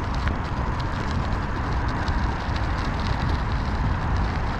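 Wind rumbling on the microphone of a moving e-bike, with steady tyre and road noise and faint irregular ticking.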